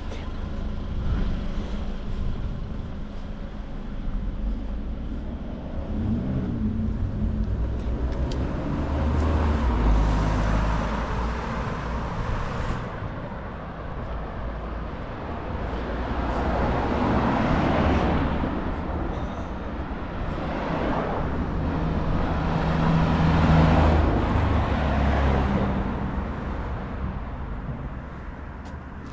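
Road traffic: a few motor vehicles pass one after another, each swelling up and fading away over several seconds, with engine hum underneath.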